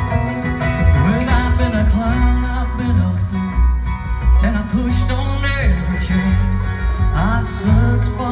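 Live bluegrass band playing an instrumental break: banjo, upright bass, fiddle, mandolin and acoustic guitar, with a steady plucked bass line underneath.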